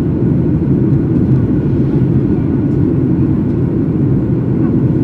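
Steady low roar inside the cabin of a Boeing 737-800 during descent: airflow and CFM56 engine noise.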